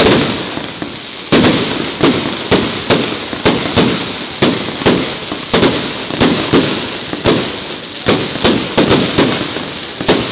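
Fireworks display: one loud bang, then after about a second a rapid volley of shell bursts, roughly two to three bangs a second, over continuous crackling.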